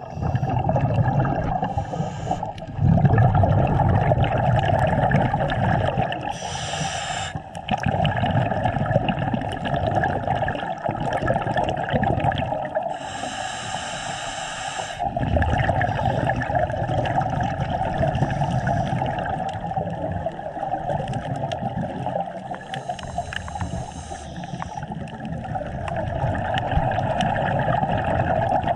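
Scuba regulator breathing heard underwater: exhalations released as bubbly bursts a few times, several seconds apart, over a steady underwater hiss.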